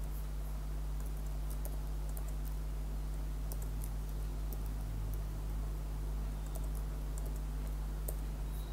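Computer keyboard typing: scattered faint key clicks over a steady low hum.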